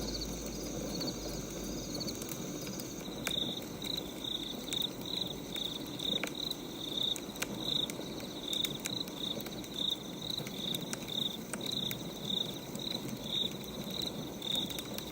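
Crickets chirping in an even rhythm, about two chirps a second, over the low crackle of a burning wood fire with scattered sharp pops. A different chirping pattern takes over about three seconds in.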